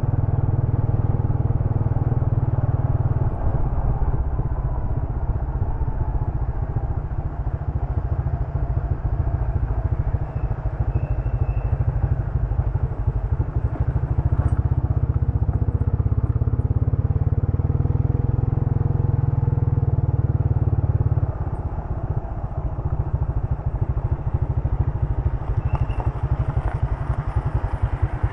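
Motorcycle engine running as it rides along, with a steady low rumble throughout that eases off a little about three quarters of the way through.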